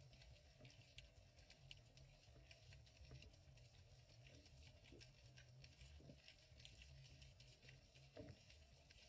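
Faint underwater ambience through a waterproof camera housing: a low steady rumble with many small, irregular clicks and crackles.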